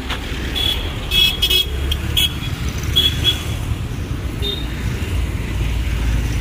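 Steady low rumble of road traffic, with several short, high-pitched squeaks and chirps coming and going.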